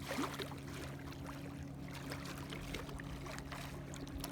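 A steady low hum holding one pitch, with faint scattered ticks over it.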